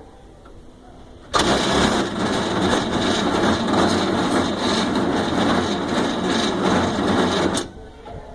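Volkswagen Kombi engine, which the owner reports makes a strange noise, starting suddenly about a second in, running loud and steady for about six seconds, then cutting off abruptly.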